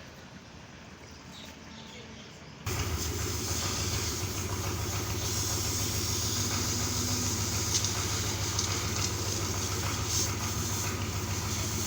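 A motor running steadily with a low hum and a hiss, cutting in abruptly about two and a half seconds in after a quieter stretch.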